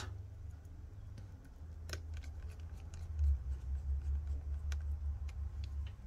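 Precision screwdriver driving tiny screws into a smartphone's plastic middle frame: a few faint, scattered clicks of the bit and screws, the clearest about two seconds in, over a low rumble from handling the phone.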